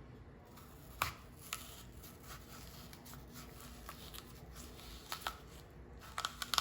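Knife cutting the cores out of whole apples: faint scraping with a few sharp clicks and taps, the loudest about a second in and a quick cluster near the end.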